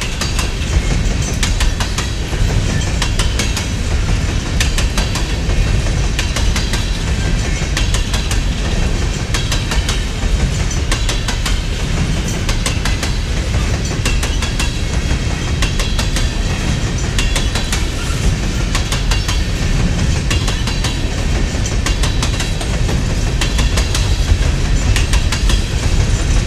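Empty coal gondolas of a unit freight train rolling past: a steady low rumble of steel wheels on rail, with frequent clicks and clacks as the wheels cross the rail joints.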